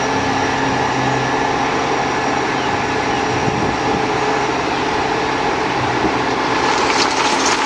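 Dump truck engine running steadily at idle.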